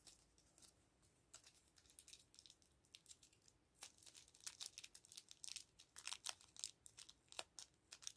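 Small plastic toy packaging crinkling and crackling as it is handled. The crackles are sparse at first and come quicker and louder from about four seconds in.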